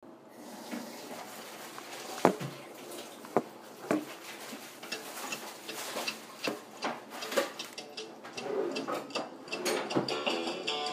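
Irregular clicks and taps from a hand handling the recording device, with a few sharper knocks in the first four seconds.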